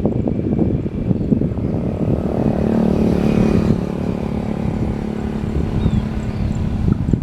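Wind buffeting the microphone over a motor vehicle engine, which passes loudest about two and a half to four seconds in and then fades. Faint high bird chirps come in near the end.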